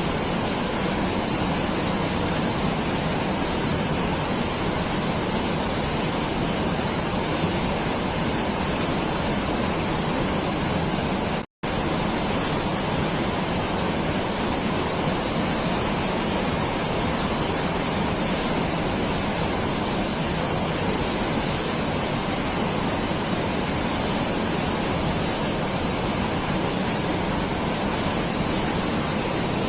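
Steady, even rushing noise with no rhythm or pitch, cut by a brief dropout to silence a little over a third of the way in.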